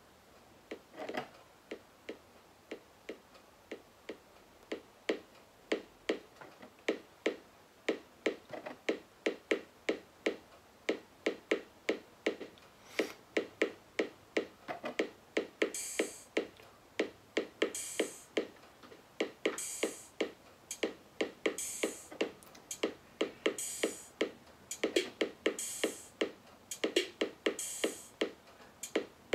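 Novation Circuit groovebox playing a sequenced electronic drum pattern through its small built-in speaker: short, sharp hits at about four a second, with hissy hi-hat-like hits joining about halfway, roughly once a second.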